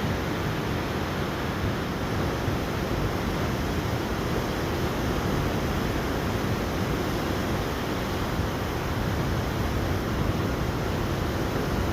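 A river in flood rushing and churning, a steady heavy roar of water with its weight in the low end.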